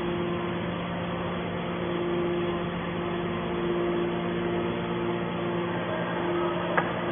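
Hydraulic scrap aluminium baler running with a steady hum, with a single sharp click near the end.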